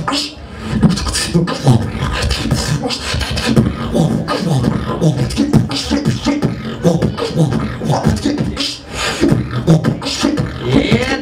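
Solo human beatboxing into a handheld microphone: a fast, unbroken stream of vocal kick, snare and hi-hat sounds over pitched low notes.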